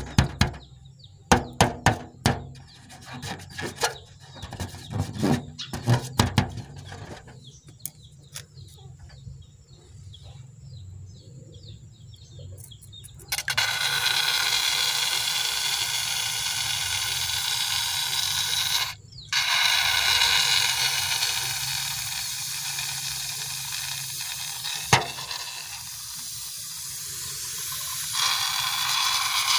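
Scattered clicks and knocks as a slime-filled rubber balloon is handled over a glass bowl. About 13 s in, a steady hissing rush begins as the slime streams out of the balloon's neck into the bowl, with a short break just past the middle.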